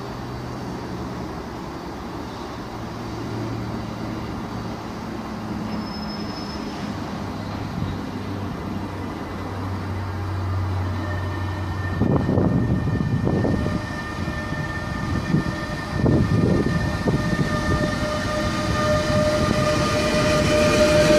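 Electric locomotive hauling a rake of passenger coaches as it comes in alongside the platform. A low steady hum gives way about halfway through to louder wheel-on-rail rumble and clatter, which grows as it nears, and a steady high whine joins in as the locomotive passes close by.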